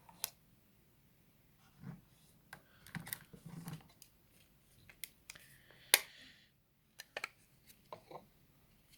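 Scattered clicks and taps as a phone's box contents and packaging are handled, with a brief rustle and one sharp click about six seconds in.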